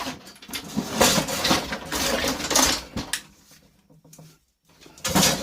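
Metal parts of a combi boiler heat exchanger clattering and clinking as they are handled and pulled apart. It is busy for the first three seconds, falls quiet about four seconds in, and starts again near the end.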